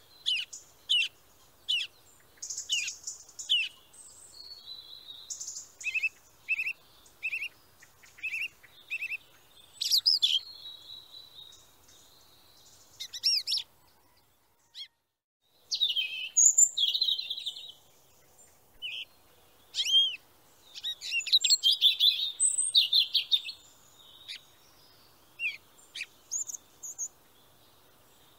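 Small birds chirping and calling: many short, high chirps and trills in quick runs, breaking off briefly about halfway through.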